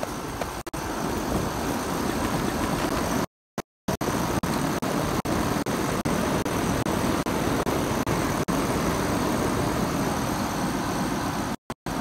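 Outdoor central air conditioner condensing units running, a steady whooshing rush from the condenser fan and compressor. The recording cuts out briefly twice, about three and a half seconds in and near the end, with many tiny dropouts between: an audio glitch in the recording.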